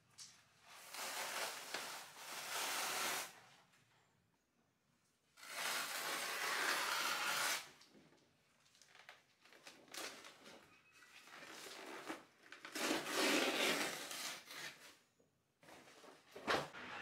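Paper wallpaper being peeled and torn off a wall by hand: three long ripping sounds of two to three seconds each, with smaller rustles between them and a short sharp sound near the end.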